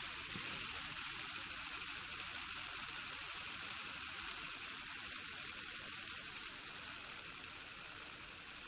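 Fidget spinner whirring on its ball bearing, a steady high hiss that fades slowly as the spin winds down.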